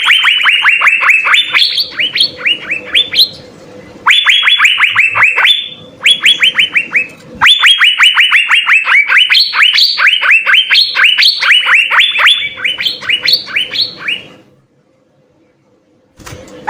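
Cucak biru (Asian fairy-bluebird) singing in fast runs of sharp down-slurred whistled notes, several a second, in four phrases broken by short pauses, then falling quiet for about two seconds near the end. A faint steady hum lies underneath.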